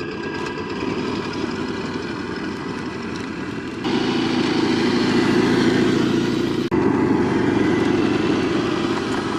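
A motor running steadily, its sound changing at abrupt cuts about four and seven seconds in.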